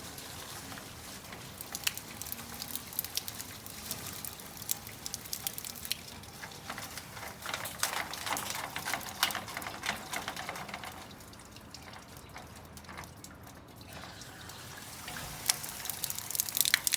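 Water dripping and splattering out of a cracked, deteriorated downspout elbow while the gutter is being flushed. It is a steady patter of drips over a trickle; it eases off about eleven seconds in, and a burst of louder splashes comes near the end.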